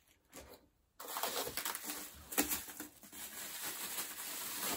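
Plastic wrapping crinkling and rustling as it is handled and pulled open by hand, starting about a second in and continuing densely.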